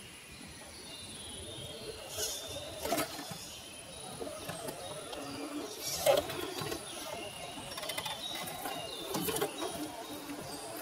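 Reely Free Men electric 1:10 scale RC rock crawler picking its way over loose stones: its motor and drivetrain run under a varying rumble, with scattered knocks and clatter of tyres and chassis on rock, the sharpest about six seconds in.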